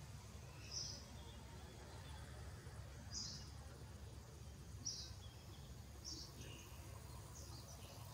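Short, high-pitched animal chirps, one every second or two, over a faint low hum.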